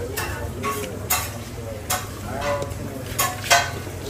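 Mealtime noises: a handful of sharp clicks and clinks, the loudest about three and a half seconds in, over a steady low hum.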